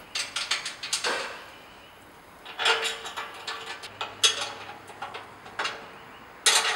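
Metal clinks and rattles as a castor wheel is bolted onto a welded tubular steel cart frame: a ring spanner knocking and turning on the bolts of the castor's mounting plate, in several short bursts of clicks.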